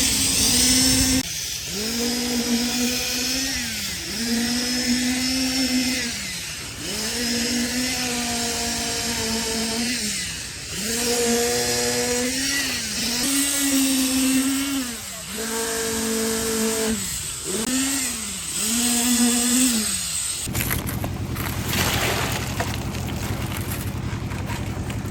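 A motor revving up, holding and dropping back again and again, about every two seconds, then changing to a steadier, noisier running sound near the end.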